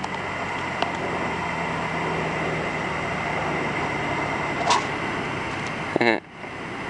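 Small plane's engine humming steadily as it comes in to land, mixed with a noisy rush. A brief voice-like sound comes about six seconds in.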